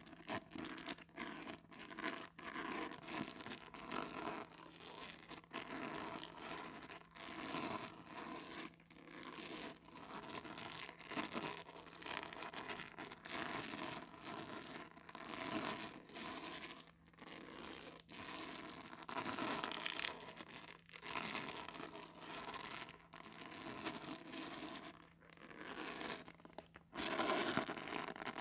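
Comb teeth scratching and raking across calendar paper in repeated, irregular strokes, getting louder near the end.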